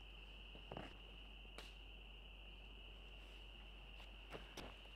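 Faint, steady high-pitched chorus of calling night creatures, with a few soft clicks and knocks, two of them close together near the end.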